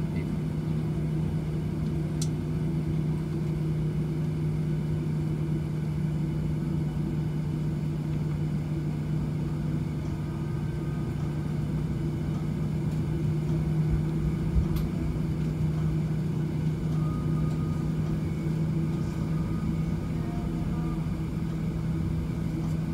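Steady cabin drone of a Boeing 737-700 taxiing in on its idling CFM56 jet engines, a constant low hum heard from inside the cabin, with a single knock about fifteen seconds in.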